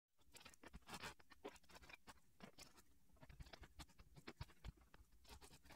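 Faint, dense crackling and clicking of thin clear plastic packaging trays being handled as soft rice cakes are lifted out of them.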